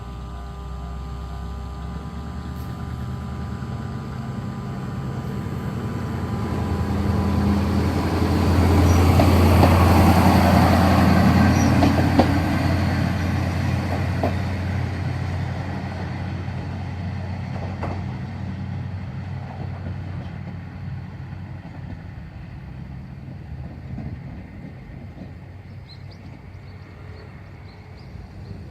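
A train passing a railway level crossing. The crossing bell rings at first, then the train's rumble grows, is loudest about ten seconds in with a few sharp wheel clicks, and slowly fades away.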